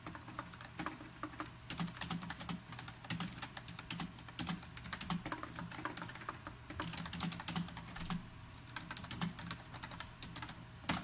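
Typing on a computer keyboard: an irregular, fast run of keystrokes as a question is typed, with one louder key strike near the end.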